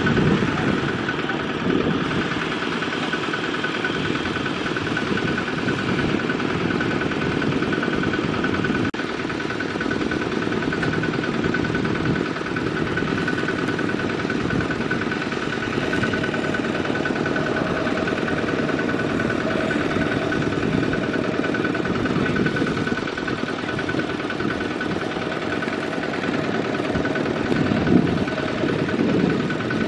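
Kubota walking tractor's single-cylinder diesel engine running steadily while the tractor pulls a trailer loaded with sacks of rice through a harvested paddy.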